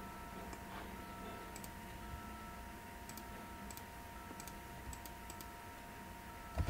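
Faint, irregular clicks of a computer mouse over a steady electrical hum.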